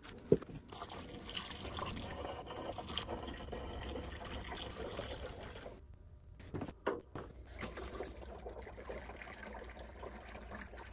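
Distilled water pouring from a plastic jug into the fill port of a laser's industrial water chiller, a steady trickling flow that breaks off briefly about six seconds in. A sharp click sounds just after the start.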